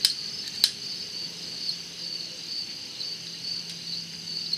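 Crickets chirping steadily, with two sharp clicks about half a second apart at the start.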